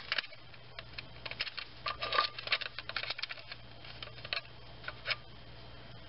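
Light, irregular clicks and taps as a timing-chain guide is handled and set into place against the timing chain and engine, thickest around the middle.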